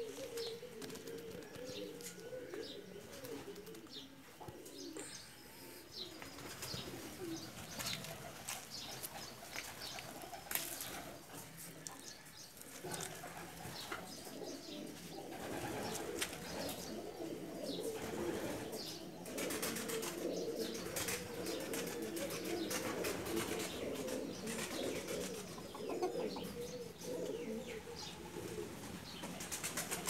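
Several birds giving low, wavering calls together, thinner early on and denser from about halfway, with a few sharp flaps or knocks.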